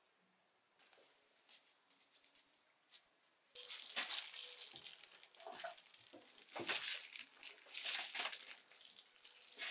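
Disposable plastic food-prep gloves crinkling and rustling in short bursts, starting about a second in. Light clicks of a bamboo rolling mat's slats come with the rustling as the mat is rolled up near the end.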